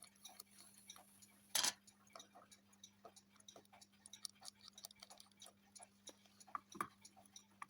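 Faint, irregular small metallic clicks of a small screwdriver and tiny screws as the screws are started into the plates of a wind-up Monaco shaver, with a louder click about one and a half seconds in and another near the end. A faint steady electrical hum lies underneath.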